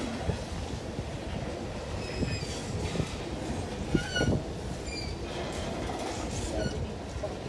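Freight train of hopper cars rolling past, its wheels and cars rumbling steadily. Short high wheel squeals come and go from about two seconds in, and there is a sharp clank about four seconds in.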